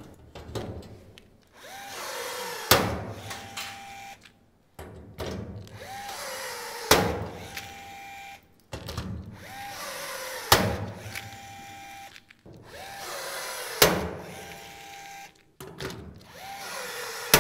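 Cordless rivet tool setting five rivets into the steel vent frame, one about every three and a half seconds. Each time the motor whirs with a short whine, then the rivet's mandrel snaps off with a sharp crack, the last right at the end.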